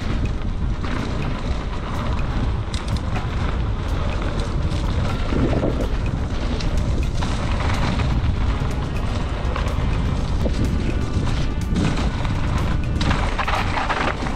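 Wind buffeting the camera microphone in a heavy, steady low rumble while a Canyon Lux mountain bike is ridden over rough trail, with frequent quick clicks and rattles from the bike.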